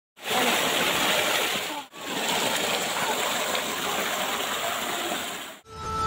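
Water pouring off a stone ledge and splashing onto rock: a steady rushing hiss, broken for an instant about two seconds in.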